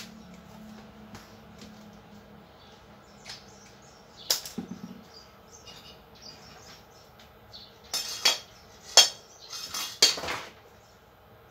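Scattered knocks and clatter of things being handled and moved by hand: a sharp knock about four seconds in, then a cluster of louder knocks near the end.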